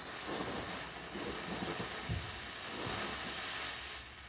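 Firework smoke bomb hissing steadily as it burns and pours out smoke; the hiss falls away a little before the end.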